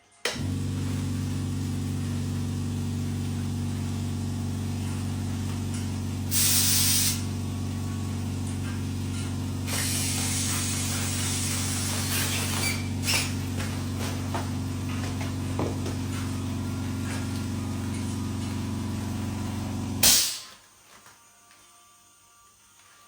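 Food sizzling and hissing in hot oil over a steady low hum. The hiss swells loudly about six seconds in and again around ten seconds. Everything cuts off abruptly a few seconds before the end.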